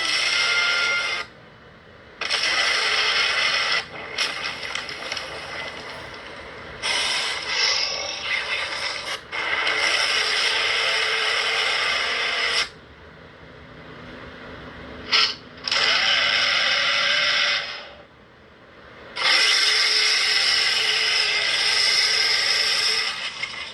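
A series of harsh, raspy giant-monster roar sound effects for Godreptar, a kaiju creature. There are about seven roars, each one to three seconds long, separated by brief pauses.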